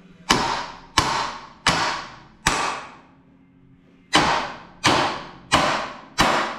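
Two hammers struck together on either side of a Chevy Nova's upper ball joint stud, to shock the stud loose without a splitter. Eight ringing metal blows fall in two runs of four, a little under a second apart, with a short pause between the runs.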